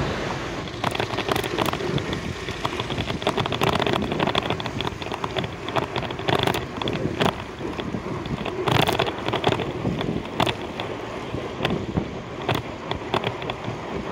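Wind noise buffeting the microphone of a camera on a moving bicycle, over street traffic, with irregular sharp clicks and knocks throughout.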